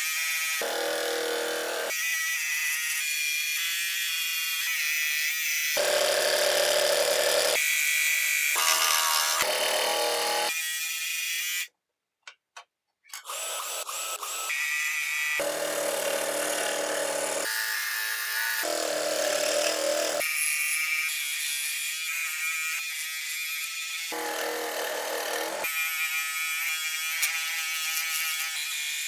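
Electric scroll saw running and cutting through a wooden board, heard in short clips that change abruptly. Near the middle the sound drops out for about a second, and a power drill boring starter holes follows before the saw sawing resumes.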